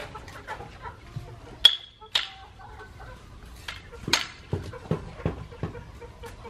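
Irregular sharp knocks and clinks of construction work. The loudest, about a second and a half in, has a short metallic ring.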